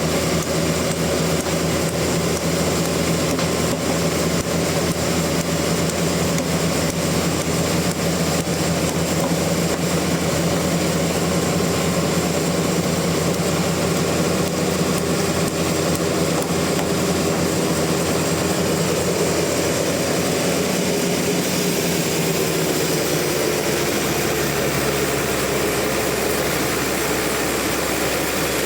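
Sawmill machinery running steadily, with a change in its note about two-thirds of the way through.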